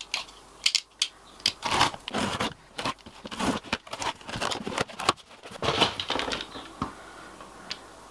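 Packing tape on a cardboard shipping box being slit with a small box cutter and ripped open: a run of irregular scraping, tearing and rustling strokes with sharp clicks.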